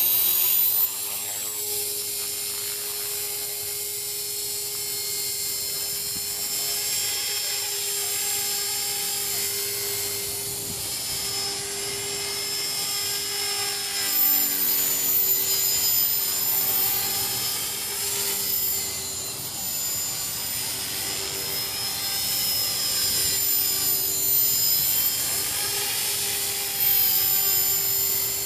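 Align T-Rex 450 Pro electric radio-controlled helicopter flying: motor and rotor whine rising to flying speed in the first second, then holding a steady pitch with small shifts as it moves about.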